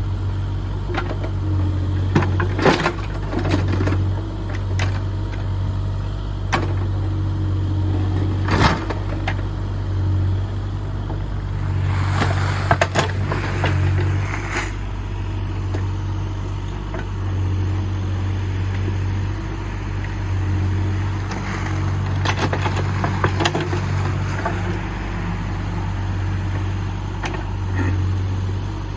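Excavator's diesel engine running steadily while digging, its level rising and falling with the work, with a few sharp clanks and scrapes of the bucket.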